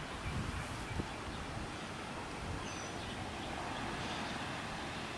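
Steady outdoor background rush picked up by a handheld camera's microphone, with a few soft low handling bumps and a click in the first second.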